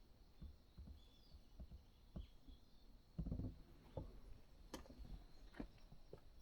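Near silence: faint outdoor ambience with a thin steady high tone, scattered small clicks and a brief low rumble a little over three seconds in.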